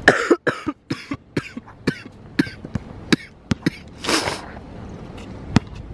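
A basketball bouncing on an outdoor hard court, a run of sharp, irregular bounces through the first few seconds and one more near the end. Someone coughs once about four seconds in.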